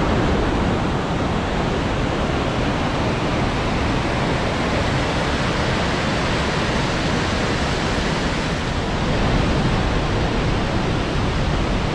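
Loud, steady rush of a mountain stream tumbling over rocks in a gorge: an unbroken, even roar of white water.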